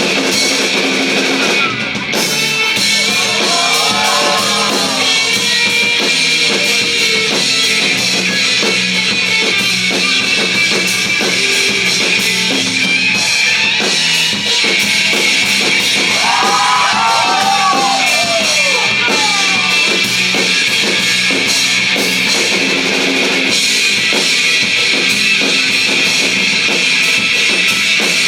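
Live rock band playing: drum kit, bass guitar and two electric guitars, with two stretches of bending, wavering melody lines, about four seconds in and again around seventeen seconds in.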